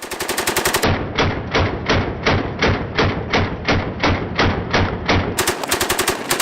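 PKM machine gun firing fast bursts of about ten shots a second, briefly at the start and again from about five seconds in. Between them comes a slower, steady run of heavy thuds, about three a second.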